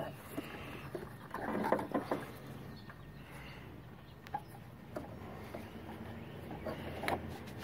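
Faint rustling and a few scattered light clicks of a gloved hand working in a car's engine bay, easing the oil filter housing down past hoses and the AC line.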